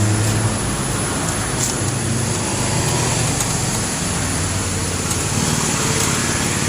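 Steady motor-vehicle noise: a low engine rumble with road traffic, unchanging throughout.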